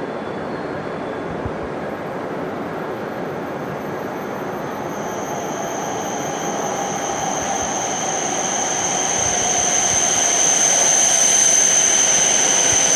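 H5 series Shinkansen train pulling into the station along the platform. Its rushing noise grows louder over the second half, and a steady high whine comes in about five seconds in and strengthens as the train draws alongside.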